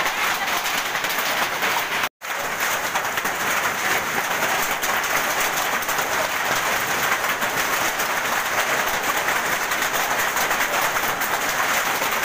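Hailstorm: hailstones pelting down in a dense, steady clatter of rapid small impacts, cut briefly by a dropout about two seconds in.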